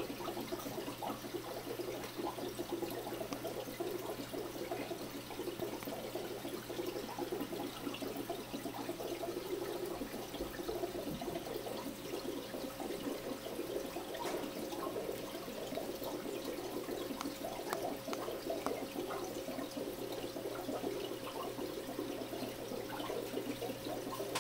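Aquarium air-bubble curtain bubbling in a 55-gallon freshwater tank: a steady, busy fizzing and trickling of water, over a constant low hum.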